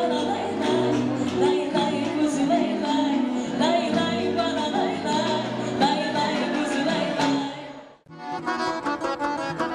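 A woman sings a folk song into a microphone with accordion accompaniment, and the song fades out about three-quarters of the way through. A new instrumental folk tune with quick plucked strings starts right after.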